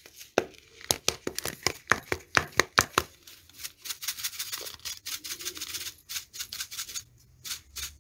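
Plastic spice shaker jar of dried oregano being shaken and tapped over a ceramic bowl: quick sharp taps, about five a second, for the first few seconds, then a softer rattling shake with lighter taps.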